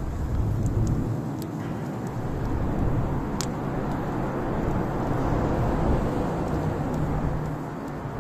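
Campfire burning, with sharp crackles and pops every second or so over a steady low rumble.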